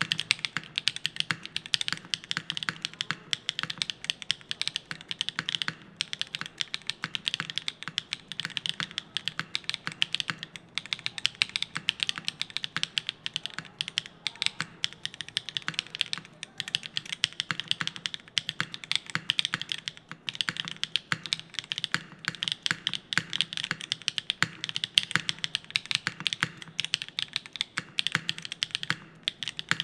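Continuous fast typing on a Foxlab Lotus80 TKL mechanical keyboard with Gateron Modern Gray linear switches: a dense stream of keystroke clacks with a few brief pauses.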